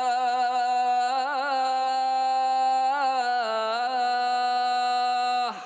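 Male voice singing the azan, the Islamic call to prayer, drawing out the last syllable of 'hayya ala al-falah' as one long held note. The note is ornamented with melismatic turns about a second in and around three seconds, then slides downward and breaks off near the end.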